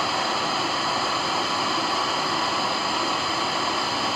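Steady hiss of FM radio static from an MP3/FM module's tuner sitting on 88.1 with no station, played through a TPA3118 amplifier board and subwoofer.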